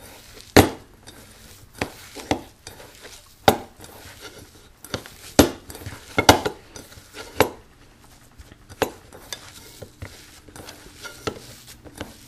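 Hand mixing a mashed boiled-potato and spice filling in a stainless steel bowl: a soft squishing rustle broken by about ten sharp, irregular clinks and knocks against the steel bowl.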